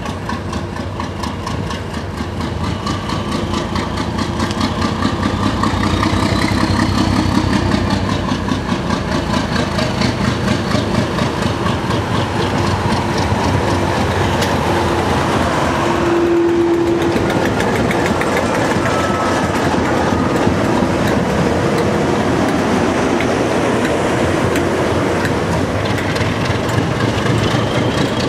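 English Electric Class 37 diesel-electric locomotive's V12 diesel engine working hard as the train pulls away past the platform. The engine grows louder over the first several seconds, then holds steady. There is a short steady tone about halfway through.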